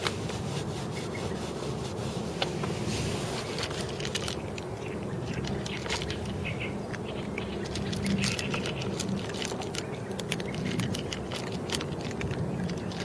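Kittens eating, with many quick small clicks of chewing over a steady low hum.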